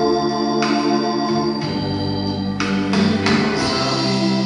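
Electronic keyboard on an organ sound playing sustained chords, changing chord about once a second: a song's instrumental introduction.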